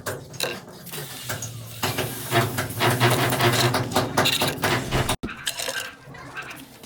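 Rapid clinks and knocks of sped-up pipe-fitting work over a steady low hum, broken by an abrupt cut about five seconds in.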